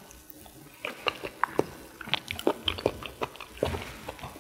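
Close-miked eating sounds: wet mouth clicks and chewing while eating rice porridge. Short sharp smacks come at an uneven pace, starting about a second in.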